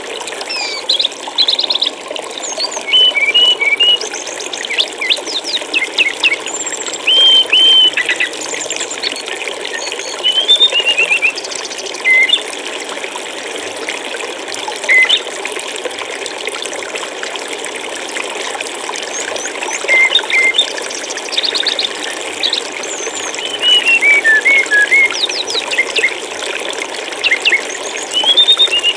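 Running water flowing and trickling steadily, with small songbirds chirping and whistling over it in short runs of quick notes that come and go.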